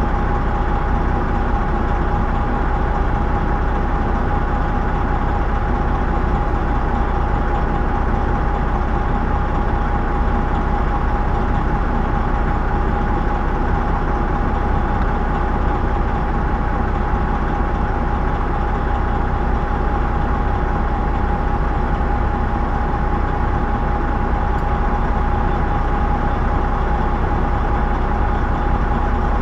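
Semi-truck diesel engine idling steadily, with a steady whine held over the low rumble.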